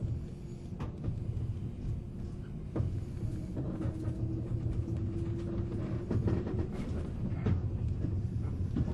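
Interior sound of a 485-series electric multiple unit motor car: a low rumble with scattered knocks, and a steady hum that sets in about three seconds in and fades out near seven seconds.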